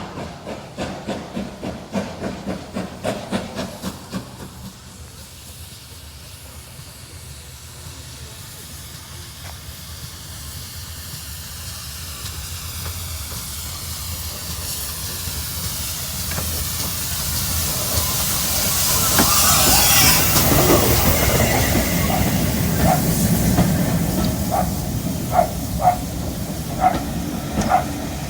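Steam locomotive 7822 Foxcote Manor, a GWR Manor class, arriving at a station. Rhythmic beats for the first few seconds give way to a hiss of steam that grows louder as the engine comes close and passes about twenty seconds in. Near the end the wheels click regularly over rail joints.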